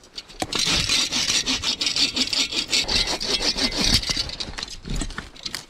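Sven folding bow saw cutting through a dry, dead log with rapid back-and-forth strokes. The sawing stops about four seconds in.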